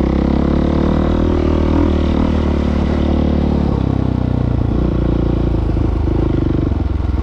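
Trail motorcycle engine running as the bike is ridden, heard from on board. The engine note drops a little past halfway through as the revs ease off.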